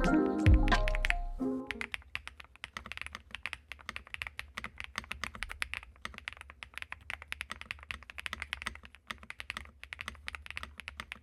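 Mechanical keyboard being typed on quickly and continuously, a fast run of short key clacks. Music plays under it at the start and stops about a second and a half in.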